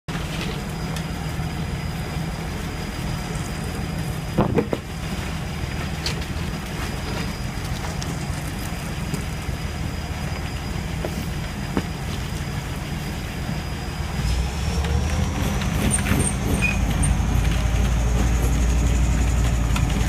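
Type 10 tank's V8 diesel engine running with a steady low rumble as the tank creeps forward. About fourteen seconds in it grows louder as the engine picks up, with a high whine that rises in pitch. A single sharp knock about four and a half seconds in.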